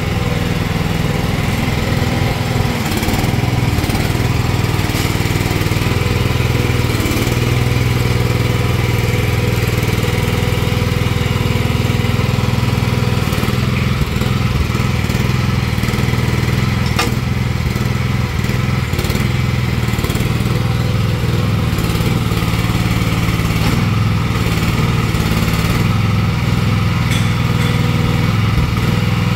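Small engine of a Nuoman mini excavator running steadily as the machine travels on its rubber tracks across concrete.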